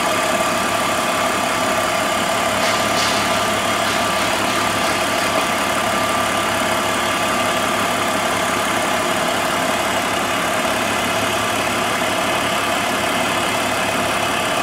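BMW engine idling steadily in the engine bay, with a steady whine running through it.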